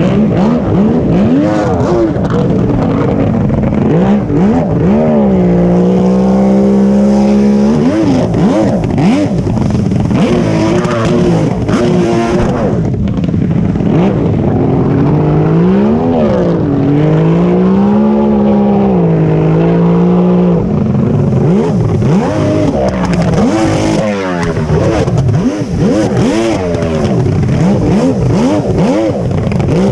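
Jet ski engine running hard, its pitch swinging up and down again and again as the throttle is worked, with a couple of steadier high-pitched runs held for a few seconds, over a steady rushing noise.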